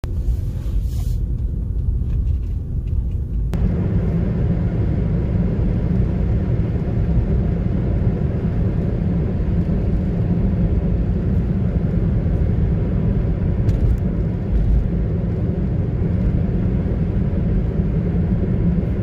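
Steady low road rumble of a moving Toyota hybrid car heard from inside the cabin, tyre and drive noise without speech. About three and a half seconds in, a wider hiss joins the rumble.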